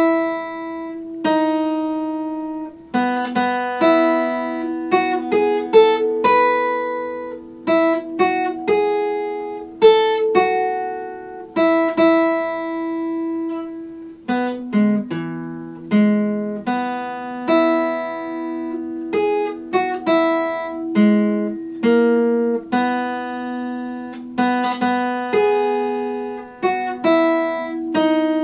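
Epiphone acoustic guitar played solo: single notes and chords picked one after another and left to ring, a slow melody over held bass notes.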